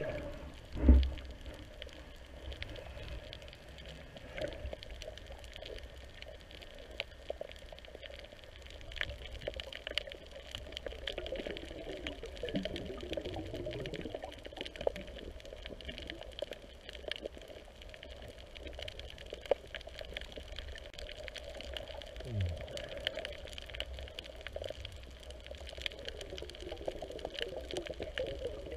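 Underwater sound through a submerged camera: a steady muffled water hiss with many scattered faint clicks and crackles, and one dull knock about a second in.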